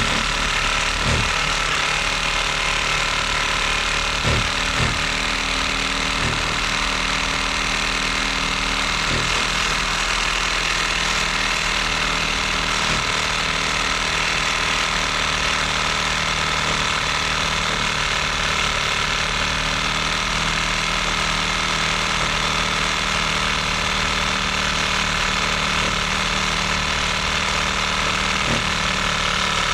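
Steady mechanical hum of a running motor, with a few light knocks in the first five seconds.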